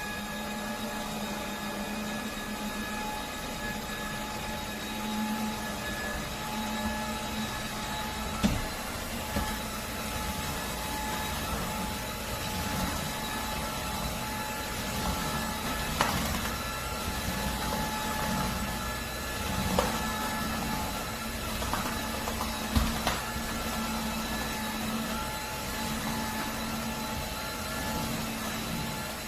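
Dreame H12 cordless wet-dry vacuum mop running: a steady motor hum with a fixed whine over it, and a few sharp knocks now and then.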